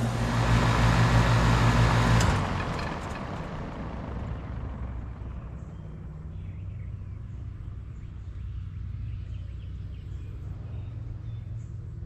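A 2001 Carrier 10 SEER 2.5-ton central air conditioner's outdoor unit running with a steady hum and fan rush, then shutting down a little over two seconds in: the sound drops sharply with a click, leaving a much quieter hum as the condenser fan coasts down.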